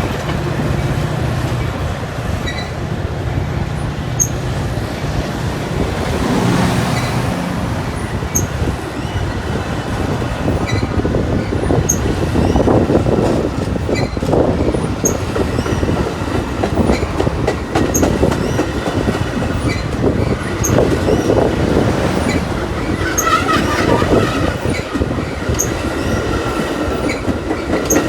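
A train rolling past on the tracks, wheels clacking over the rail joints in a dense run of clicks, with a brief high wheel squeal about twenty-three seconds in.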